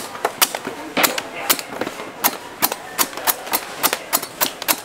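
A coconut being hacked open with a knife: quick, sharp chops, about four a second in an uneven rhythm.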